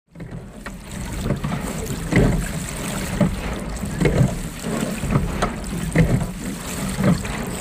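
Wind buffeting the microphone beside open water, a steady rumbling hiss that swells in dull gusts about once a second.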